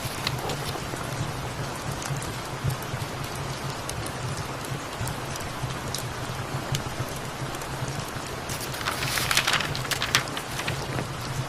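Steady rain falling, with scattered light ticks of drops throughout. A brief louder rustle about nine seconds in.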